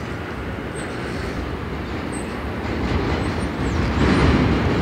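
R160A subway train approaching on elevated track, its rumble growing steadily louder and stepping up about four seconds in.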